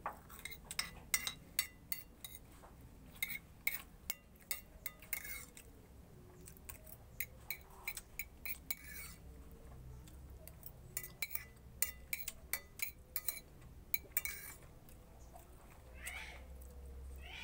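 Metal spoon clinking and scraping against a plate while someone eats, in quick irregular clicks that come in clusters with short pauses.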